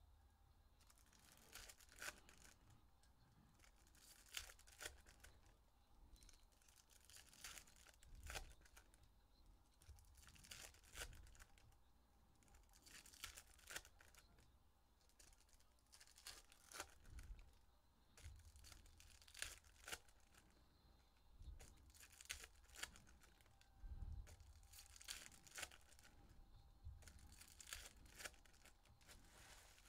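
Faint tearing and crinkling of foil trading-card pack wrappers as packs are opened, in short clusters of crackles every second or two.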